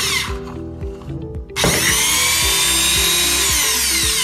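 Restored old electric drill running as it bores into a plastic box: it cuts off about a quarter second in, starts again about a second and a half in, and its whine slides down in pitch as the bit bites. Background music plays underneath.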